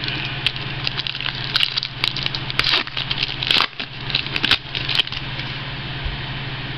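Crinkling and crackling of a foil trading-card pack wrapper being handled and torn open, a run of sharp crackles from about half a second in until about five seconds in, over a steady low hum.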